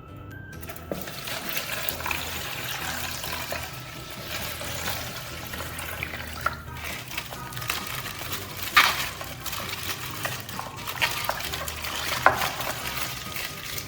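Coloured water sloshing and being stirred in plastic, with crinkling and small clicks. Two sharper crackles stand out, about nine and twelve seconds in.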